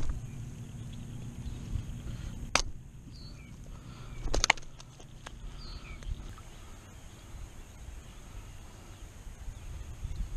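Footsteps through wet mud and grass with a low rustle, broken by a few sharp knocks near the start, about two and a half seconds in and around four and a half seconds in. Faint bird chirps come and go behind it.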